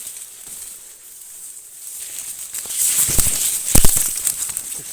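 Rustling and crackling of dry corn plants being brushed through, with a few sharp knocks, after about two quiet seconds; it is loudest about four seconds in.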